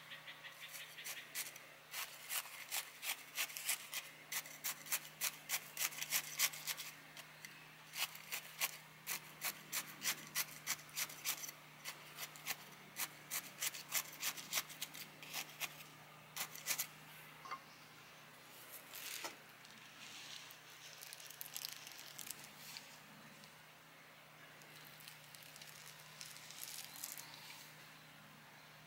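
A thin wooden stick jabbed again and again into coarse granular bonsai soil in a plastic-bottle sleeve: a fast run of sharp clicks and rattling grains, several a second, thinning to scattered softer crackles about halfway through. Working a stick into the soil this way settles it around the roots after potting.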